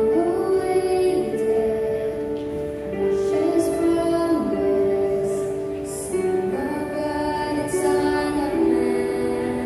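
A girl singing a song into a microphone with long held notes, over musical accompaniment.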